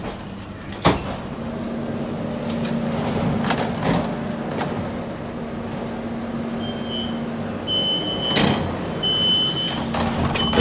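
Inside a DUEWAG B80D light-rail car standing at a stop: four short, high door-warning beeps in the second half, with knocks and clunks of the sliding doors and a steady low hum from the car's equipment. A sharp knock comes about a second in, and a loud one ends the last beep.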